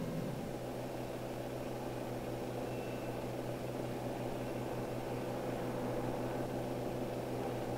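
Steady low hum with hiss and no distinct events: the background noise of an old film soundtrack.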